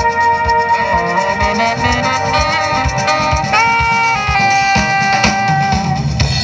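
Live jazz band playing: a saxophone holds long melody notes over a steady drum-kit beat, with the violin joining.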